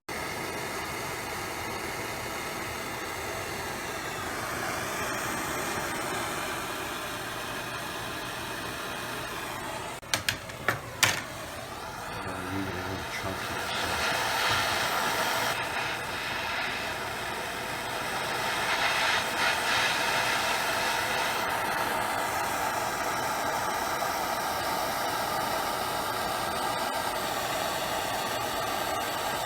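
Propane torch flame hissing steadily while heating copper tubing for soldering, with a few sharp clicks about ten seconds in.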